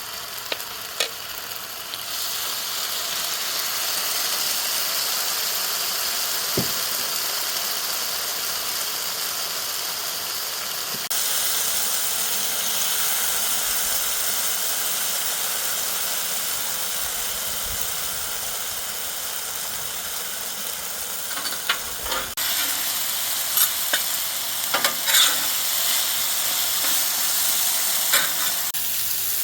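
Food sizzling and frying on a Blackstone flat-top griddle, a steady hiss, with a few short sharp clicks and knocks in the latter part.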